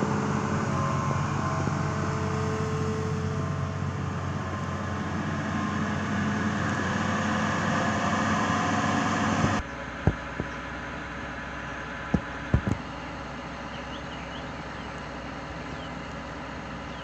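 Hitachi amphibious excavator's diesel engine running steadily. About nine and a half seconds in, the sound drops suddenly to a quieter, even noise broken by a few sharp knocks.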